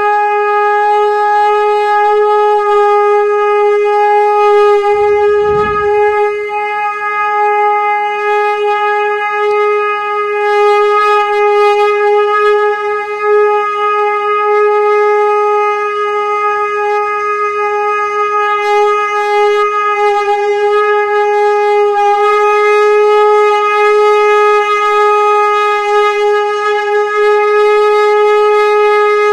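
Conch shell (shankh) blown in one long, steady tone with many overtones, holding the same pitch throughout.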